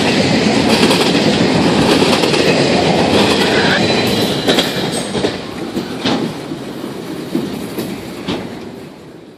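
Freight train cars rolling past, their steel wheels clattering over the rail joints. The noise dies away over the second half, with a few sharp clanks as the train moves off.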